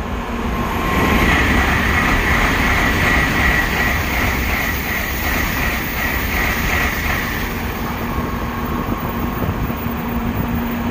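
N700-series Shinkansen bullet train running past along the platform: a steady loud rush of wheel and air noise, with a high pulsing hiss that fades about seven seconds in while the low rumble carries on.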